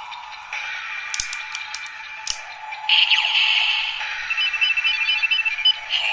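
Kamen Rider Ridewatch and driver toy playing electronic sound effects through its small tinny speaker: a few sharp clicks of the toy being pressed and turned, then a loud rising sweep about three seconds in, followed by a quick run of short beeping tones.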